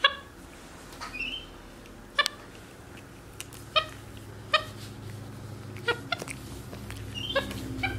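Capuchin monkeys giving short high-pitched calls, about one every second, one of them a quick rising chirp, over a faint low steady hum.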